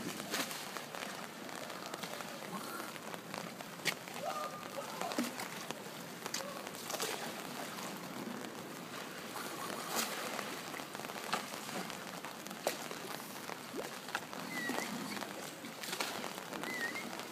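Water splashing and dripping as a dolphin swims at the pool's edge, with scattered sharp pops and crackles and two short high chirps near the end.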